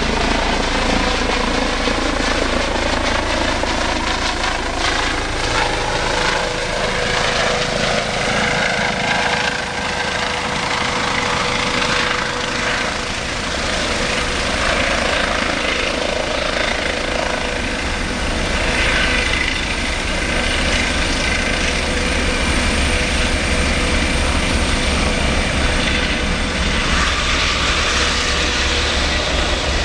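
Eurocopter EC135 air ambulance helicopter coming in to land, its rotor and turbine running loud and steady. A thin high whine fades out a few seconds before the end.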